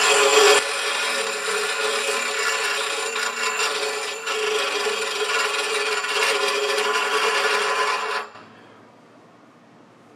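SKIL 8-inch 3-amp bench grinder's 60-grit wheel grinding a steel rod: a steady, gritty rasp over the running motor. The grinding stops abruptly about eight seconds in, leaving only the grinder running faintly.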